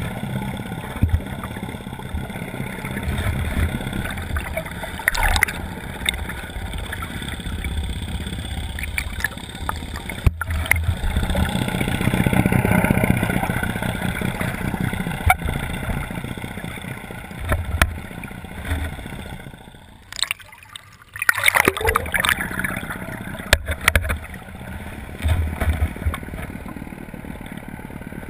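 A boat's engine running, with water gurgling and splashing against the net-mounted camera and occasional sharp knocks. About twenty seconds in the sound briefly drops away, then comes back with a splash.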